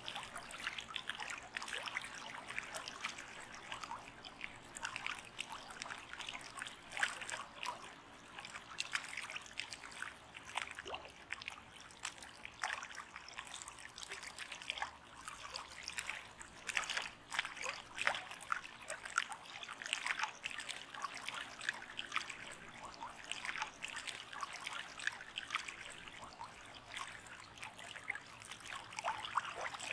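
Water trickling and babbling: a steady, irregular patter of small splashes.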